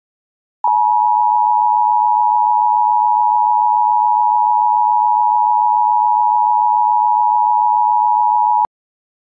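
Emergency Alert System attention tone: one steady electronic tone that starts abruptly, holds evenly for about eight seconds and cuts off sharply.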